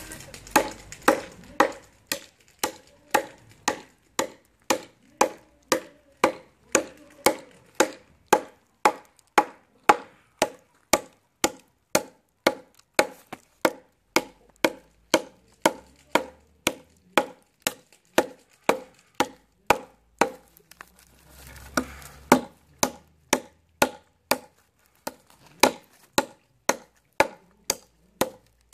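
A KA-BAR Becker BK9 bowie knife chopping into a ten-year-old, hard and dry peumo branch, striking at a steady rhythm of about two chops a second. There is a short break about three-quarters of the way through, then the chopping goes on.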